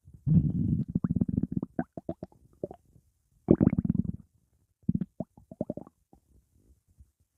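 Stomach growling: a low rumble that breaks into a quick run of short, squeaky gurgles, then two shorter bouts of rumbling and gurgling with pauses between.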